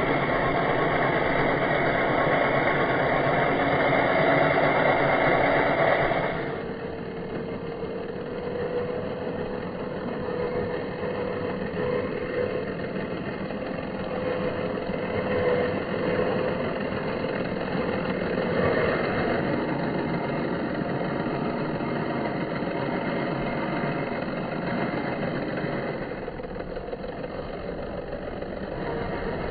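A 1/10-scale RC crawler's motor and drivetrain whining as it drives. It is louder and fuller for about the first six seconds, then quieter, with a wavering whine.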